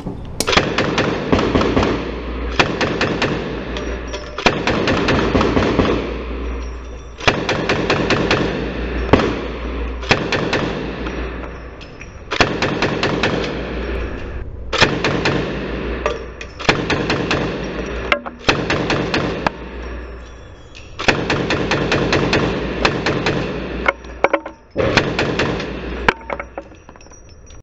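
Uzi submachine gun firing on full auto in about a dozen bursts of one to two seconds each. The sound is slowed down, so each burst comes out deep and drawn out.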